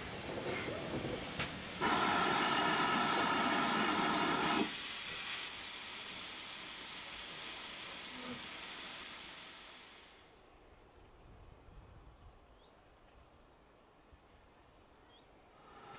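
Steam hissing steadily from GWR 5600 class 0-6-2 tank locomotive No 5637. The hiss is loud for about four and a half seconds, then drops to a softer hiss that fades about ten seconds in, leaving a low background with a few faint high chirps.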